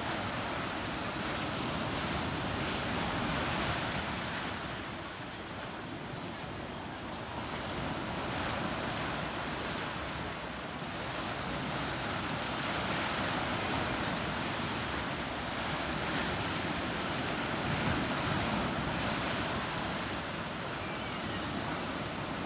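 Black Sea surf: waves washing in and drawing back, the rush of water swelling and easing every few seconds.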